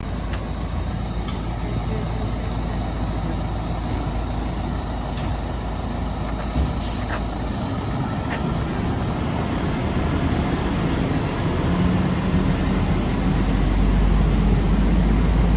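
Fire truck engine running with a steady low rumble that grows louder toward the end, with a short hiss of air brakes about seven seconds in.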